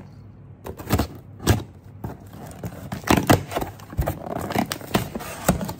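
Scissors cutting through packing tape on a cardboard shipping box, then the cardboard flaps being pulled open. It is a run of sharp snaps and clicks over scraping and rustling.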